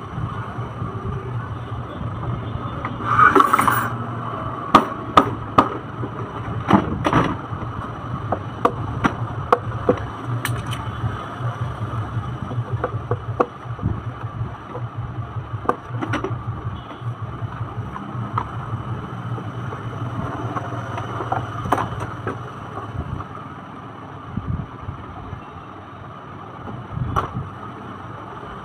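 Hard plastic parts of a toy ride-on car clicking and knocking as they are handled and pressed together while its wheels and axle caps are fitted, with a louder clatter about three seconds in. A steady low hum sits underneath.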